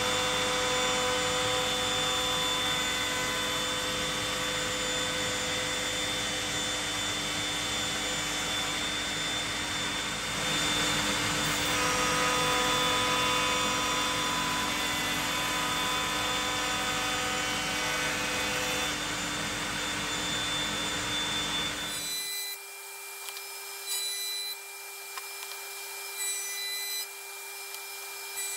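Router in a Trend router table running steadily, its bevel bit cutting the edge of a hardwood cutting board, with a dust extractor running beneath it. About two-thirds of the way through, the sound cuts abruptly to a thinner, higher steady whine with light ticks.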